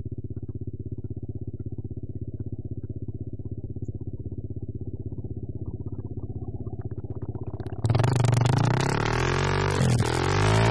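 Dirt bike engine on a motocross track: first a muffled, steady drone with a fast even pulse. About eight seconds in it gives way abruptly to a loud, clear engine sound revving, its pitch dropping and climbing again as it shifts.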